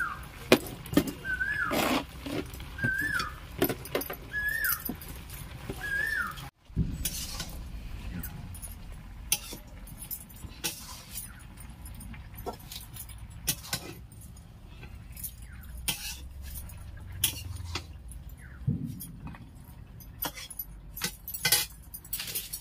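Metal utensil clinks and clatter, many short knocks throughout, typical of stirring and handling a metal cooking pot. In the first six seconds an animal's short call, rising then falling, repeats about five times at roughly one-second intervals. The sound breaks off for a moment about six and a half seconds in.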